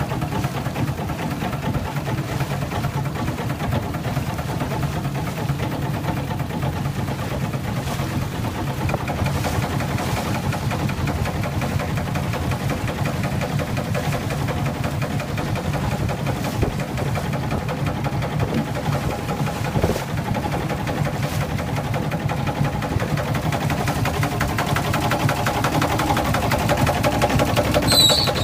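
A small steam launch's engine running steadily with a fast, even mechanical beat. A short high-pitched chirp comes near the end.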